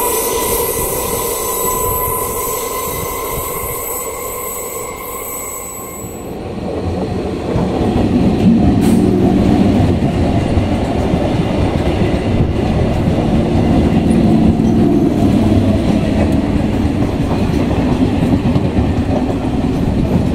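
Electric multiple unit local train coming in along the platform. A steady high tone fades over the first six seconds and ends abruptly. Then the coaches pass close by with a loud rumble and wheel clatter, from about seven seconds in.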